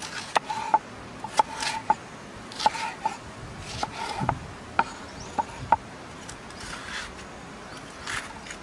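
Large cleaver-like knife slicing a red bell pepper on a round wooden chopping board: sharp knocks of the blade on the wood mixed with the scrape of cuts through the pepper, in an irregular run of strokes that thins out after about six seconds.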